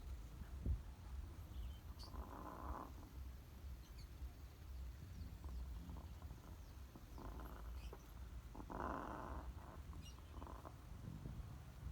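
Pet parrot making four short raspy noises over a low rumble.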